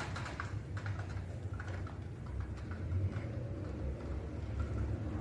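A few light clicks and taps, mostly in the first two seconds, over a steady low hum.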